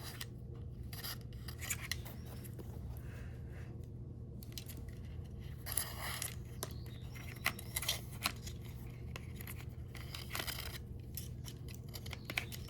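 Scattered small clicks and short scratchy rustles of a thin electrical wire being handled and fed through a small hole in a headphone's housing.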